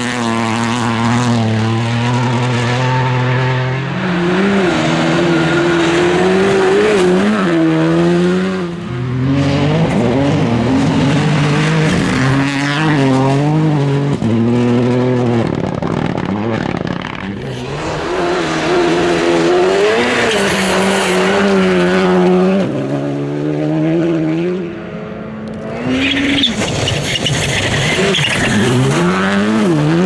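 Rally2 cars' turbocharged 1.6-litre four-cylinder engines at full attack, one after another, revving hard and dropping back through quick gear changes and lifts, with gravel spraying from the tyres.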